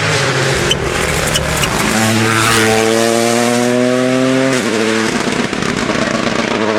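Rally car engine under hard acceleration, its pitch climbing steadily for a couple of seconds and then dropping sharply at an upshift about four and a half seconds in, before pulling again.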